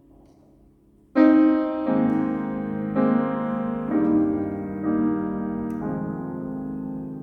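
Piano playing slow, ringing chords. A faint tail fades out, then a loud chord is struck about a second in, and new chords follow roughly once a second, each left to ring and die away.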